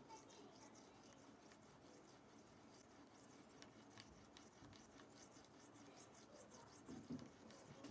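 Faint, quick, repeated rubbing strokes of hand abrasion on a shoemaker's metal edge iron, part of cleaning rust off it.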